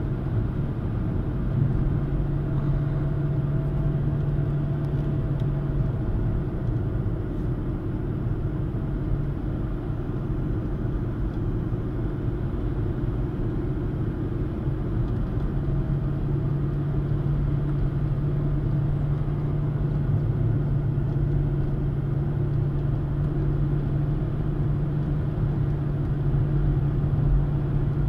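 Steady engine drone and tyre road noise inside a Mercedes-Benz car cruising along a road. The low drone fades for several seconds in the middle and then comes back.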